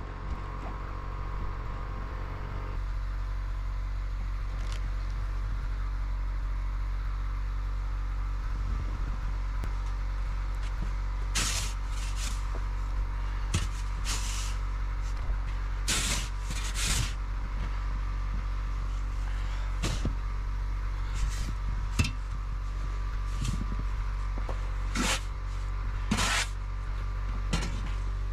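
A motor running steadily, with short hissing bursts every few seconds.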